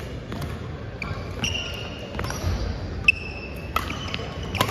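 Badminton rally on a wooden gym floor: several sharp racket strikes on the shuttlecock, the loudest about three seconds in and near the end, with short squeaks of court shoes on the floor between them, echoing in a large sports hall.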